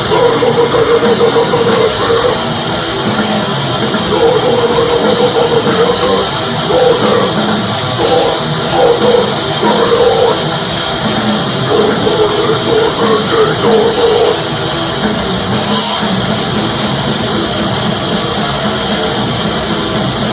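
Live death metal played by a band on stage: heavily distorted guitars and a drum kit, loud and dense, with a repeated guitar figure chopping on and off through the first half.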